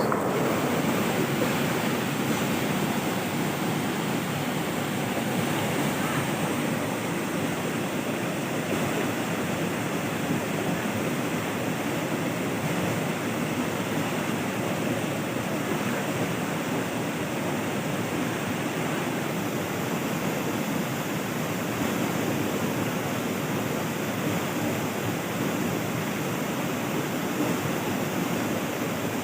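Steady rush of moving water, an even noise without breaks.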